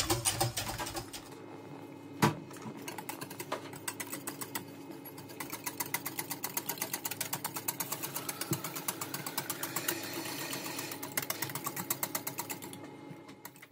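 Wire whisk beating thick milk pudding (firni) in a stainless steel saucepan, its wires clicking against the pan in a rapid, even rhythm. One louder clack comes about two seconds in, and the clicking fades out near the end.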